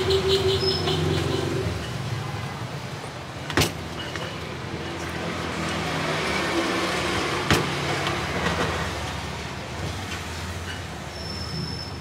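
Street traffic: motor vehicle engines humming past, with two sharp clicks, one about a third of the way in and one about two-thirds in.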